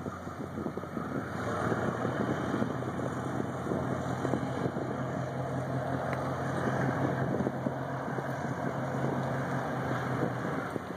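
Diesel engines of the Cyclone-class patrol ship USS Hurricane running under way, heard across the water as a steady low hum that stops shortly before the end.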